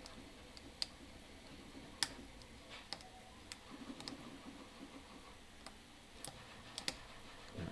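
Small metal lock pick and tensioner clicking against the spring-loaded wafers inside an Abloy Ava double-sided wafer padlock: faint, irregular sharp ticks, about a dozen, over soft handling noise, as the picker works the lock toward a false set.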